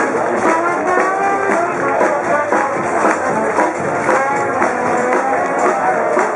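Dixieland jazz band playing live: a brass melody with trombone over a steady strummed, plucked-string beat.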